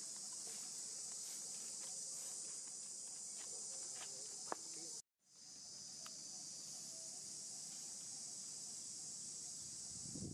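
Steady high-pitched insect chorus that breaks off for a split second about halfway through.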